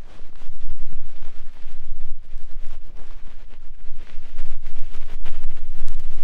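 Hands rubbing and fluttering rapidly against the ears of a binaural ASMR microphone in the 'helicopter' ear-cleaning technique: a loud, deep rumbling flutter made of many quick thuds.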